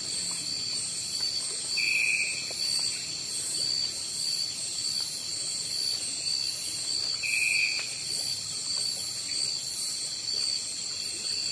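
Night insects chirring in a steady, high, pulsing drone. Two short, slightly lower chirps stand out, about two seconds in and again near eight seconds.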